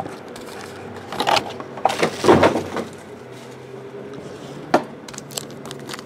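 Foil packs of 2012 Bowman Baseball cards being handled and stacked on a table: irregular crinkling and rustling of the wrappers, loudest about two seconds in, and a single sharp click near the end. A faint low hum comes in about halfway.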